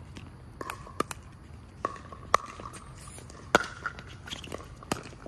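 Pickleball rally: a series of sharp pops from paddles striking the plastic ball and the ball bouncing on the hard court, about seven over five seconds, with the loudest two near the middle. A faint squeaking tone sounds between some of the hits.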